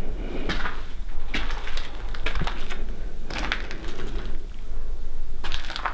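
Footsteps crunching and scuffing on a gritty, debris-covered floor, an irregular step about every half second to a second.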